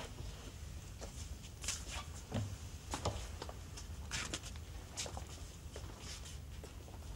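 Sparse, irregular scuffs and clicks of movement, over a steady low hum.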